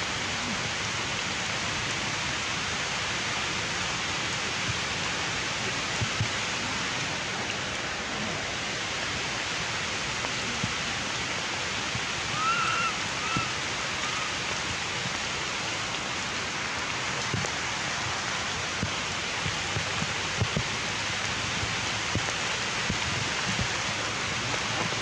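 Steady, even hiss of outdoor forest ambience, with a few short high chirps about halfway through.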